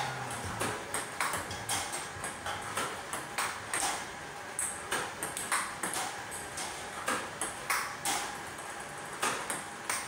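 Table tennis balls clicking sharply off the table and the paddles in a fast drill fed by a ball-throwing robot, about two or three hits a second.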